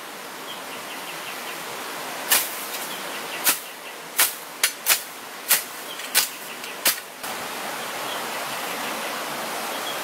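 A small hand shovel striking down into a layer of cut leaves on an earth floor, about eight sharp slaps spread unevenly over a few seconds, over a steady hiss.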